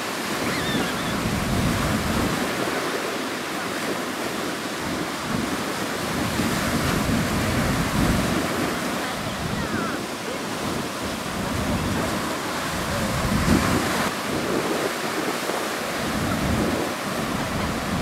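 Breaking surf rushing and washing over rocks and shallows, a continuous wash that swells and ebbs, loudest about 8 and 13 seconds in. Wind buffets the microphone, adding an uneven low rumble.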